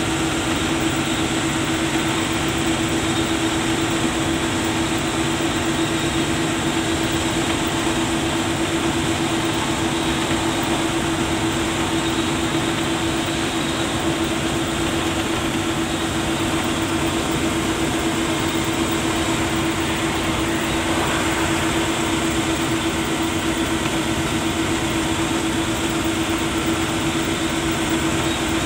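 Steady cabin noise inside a moving MSRTC bus at cruising speed: engine and road noise with a constant low hum.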